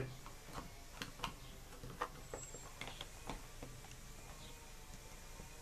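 Small plastic case being handled and closed on a table: a sharp click at the start, then faint scattered taps and clicks.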